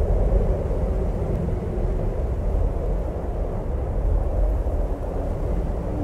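Howling wind of a severe snowstorm: a steady, deep rush of wind that swells a little in gusts.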